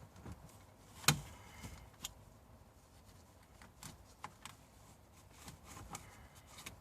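Hands working in a car's dashboard: scattered light clicks and rustling of plastic and material being handled. One sharp click comes about a second in, with smaller ticks after it.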